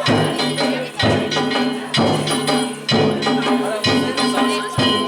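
Danjiri float's festival percussion (narimono): a large drum struck about once a second, with metal gongs ringing over it.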